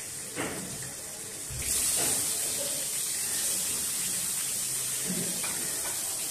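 Long-cut raw potato pieces going into hot oil in a metal wok with a soft thud about a second and a half in. The oil's faint hiss then jumps to a steady, louder sizzle as the potatoes start to fry.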